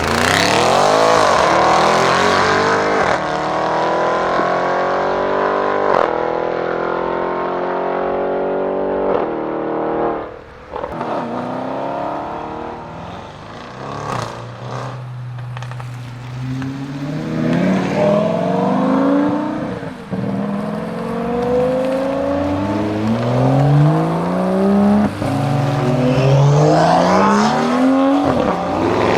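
Audi RS6 Avant C7's twin-turbo V8 through a Milltek exhaust, loud and steady for about ten seconds, then dropping off with a few sharp cracks. From about halfway it accelerates hard, its pitch rising in three sweeps as it pulls through the gears.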